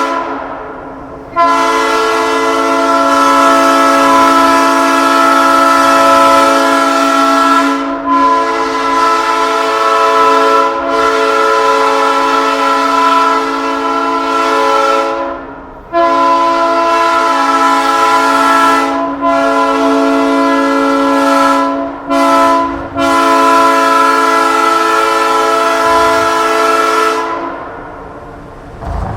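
A newly cast Nathan AirChime P3 three-chime train horn, air-fed and mounted on a truck, sounding a loud steady chord in long blasts of several seconds each with brief breaks between them. It cuts off a little before the end and dies away.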